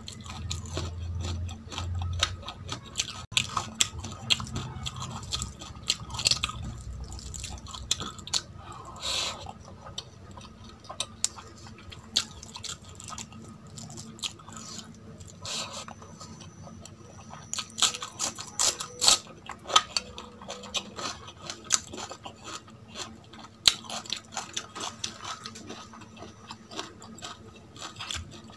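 Close-miked eating sounds: chewing, with many small clicks as rice is mixed by hand on a steel plate.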